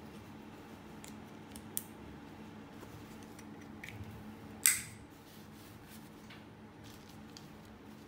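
Plastic tongues of a stroller's five-point harness being fitted into the central buckle: a few small clicks, then one sharp, loud click a little past halfway as a tongue snaps into the buckle.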